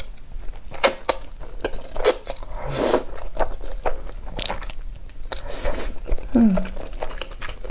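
A person slurping up chili-sauced hot dry noodles in long sucking slurps, about three seconds apart, then chewing them with small wet mouth clicks.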